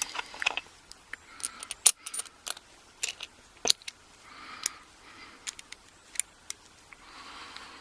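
Small steel padlock parts being handled and fitted back together: irregular sharp metallic clicks and taps, the loudest about two seconds in and again near four seconds, with a little soft scraping between them.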